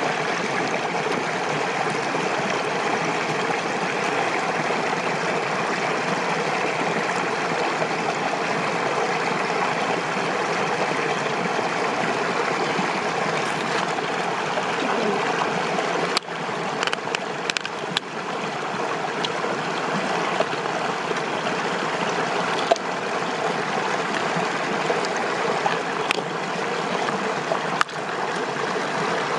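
Steady rush of running water, with a handful of sharp clicks or knocks in the second half.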